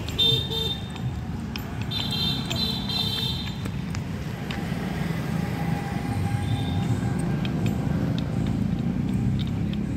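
Street traffic: a vehicle horn honks briefly twice in the first few seconds over a steady low rumble of road noise.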